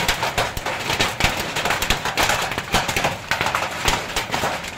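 Hailstorm: large hailstones pelting down, a dense, irregular clatter of sharp hits over a steady hiss.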